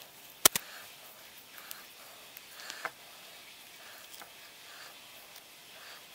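Quiet knife work on raw beef short ribs, trimming silver skin and fat on a plastic cutting board: soft scraping strokes and a few faint ticks, with a sharp double click about half a second in.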